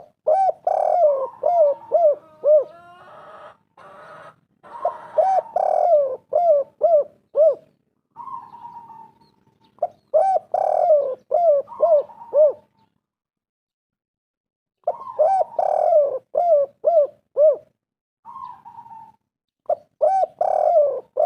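Spotted dove cooing in repeated phrases. Each phrase is a quick run of short, arching coos, and the phrases are separated by pauses of a second or two. A brief hiss comes about three seconds in.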